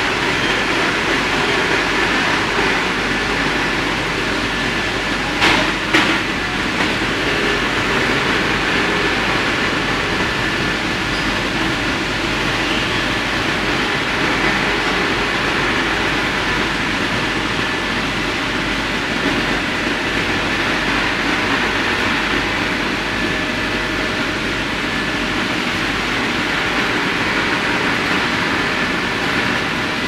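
Industrial tunnel microwave drying line for red dates running: a steady mechanical noise from its fans, motors and mesh conveyor, with a faint steady whine. Two short sharp knocks come about five and a half and six seconds in.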